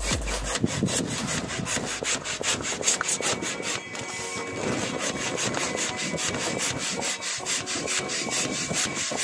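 Balloon pump pushing air into a clear bubble balloon stuffed with smaller balloons, in quick, even whooshing strokes.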